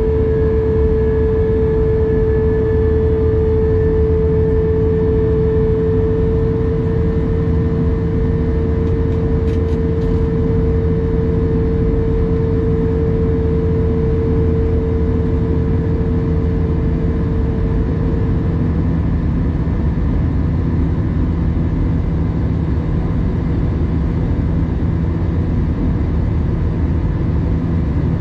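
Jet airliner cabin noise in flight: a steady low rumble of the turbofan engines and airflow heard through the cabin, with a steady mid-pitched hum that fades away about two-thirds of the way through.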